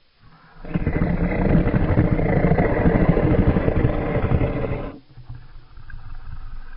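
Custom Majungasaurus sound effect: a deep, rumbling creature growl lasting about four seconds, starting just under a second in and cutting off sharply, followed by a quieter low rumble.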